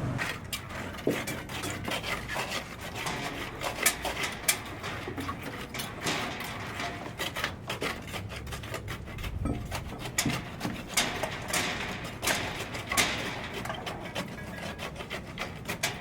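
Irregular knocking, tapping and scraping of hand work on a building site, several sharp knocks a second.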